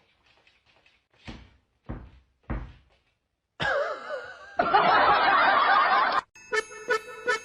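Three dull thumps about half a second apart, then a burst of loud laughter lasting a couple of seconds, and near the end light music with a steady beat starts.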